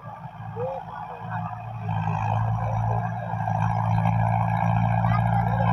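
Tractor diesel engine running steadily while pulling a rotavator through the soil, getting louder about two seconds in.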